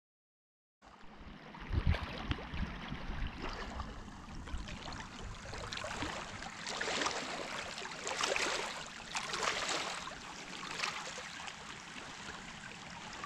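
Small waves washing and lapping on a rocky shoreline, starting about a second in and surging again every second or so, with a low rumble about two seconds in.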